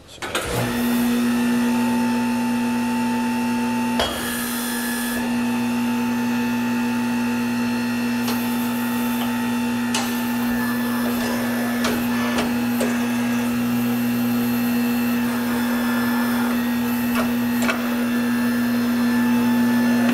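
Hunter Revolution tire changer powered up and running: a steady electric motor hum that comes on suddenly about half a second in, with a few sharp clicks from the machine.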